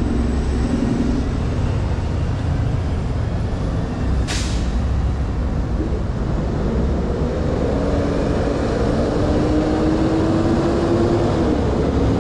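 City street traffic rumbling past. About four seconds in there is a short hiss of released air, typical of a heavy vehicle's air brakes. Through the second half a passing engine drones steadily.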